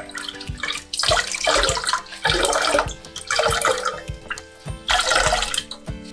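Water splashing in about four short bursts, each under a second, over background music with a steady beat.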